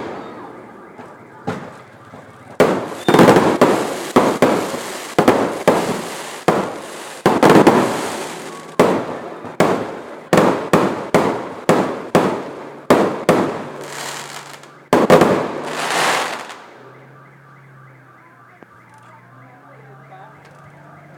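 Fireworks going off in quick succession: a long run of loud, sharp bangs, each trailing off in a rumble, that stops about sixteen seconds in and leaves only faint background sound.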